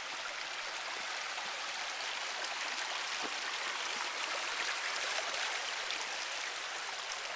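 A small river running, a steady even wash of moving water.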